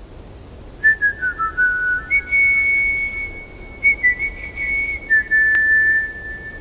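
Whistled melody, a single clear line. Short notes step down about a second in, then long held high notes each slide down a step, over a soft low hum.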